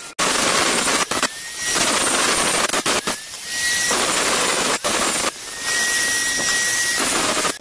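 Angle grinder with an abrasive cut-off disc cutting through rectangular steel tube: a loud, continuous grinding hiss with a high whine that rises under load, easing off briefly a few times as the disc is eased back.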